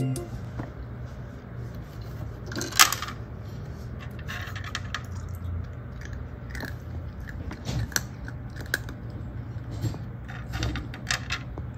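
Dry kibble clicking against the plastic tray of an automatic cat feeder as a Bengal cat paws at it and crunches the pieces, in scattered clicks and taps. The loudest rattle comes about three seconds in.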